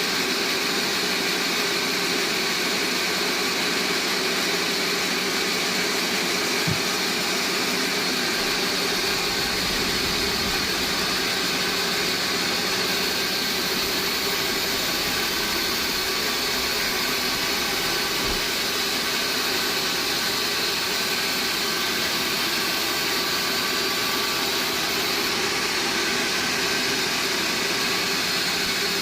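Band sawmill running steadily while sawing a log, an even machine noise with a steady whine.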